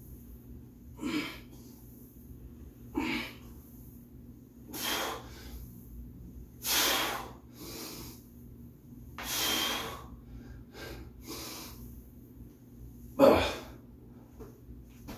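A man breathing hard through a set of heavy barbell back squats: a sharp breath or exhale with each rep, roughly every two seconds. The loudest, lowest one comes near the end.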